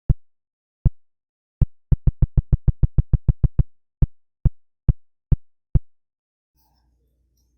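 A synthesized phone haptic vibration made in FL Studio, meant as the touch feedback felt when tapping or typing on a keyboard. It plays as short, low buzzing pulses: a few spaced singly, then a quick run of about a dozen, then five more spread out.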